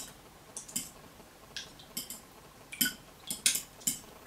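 Metal fork beating raw eggs in a glass bowl, clinking against the glass in short, irregular taps, roughly two or three a second.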